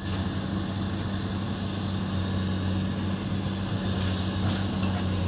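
Komatsu PC200 hydraulic excavator's diesel engine running steadily under work, a low even drone.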